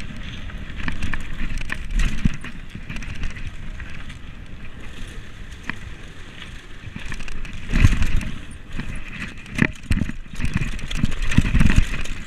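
Commencal Meta SX2 mountain bike riding fast over a dirt trail and wooden boardwalk slats: continuous tyre rumble and rattling from the bike, with several hard knocks from bumps in the second half.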